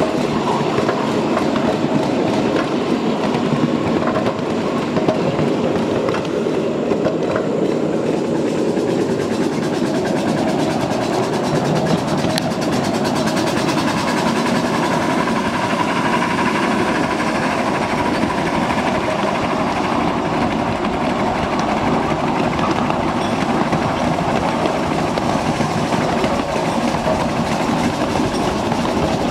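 Ride-on scale live-steam train running along its track, heard from a riding car: a steady rolling rumble of small wheels on rail.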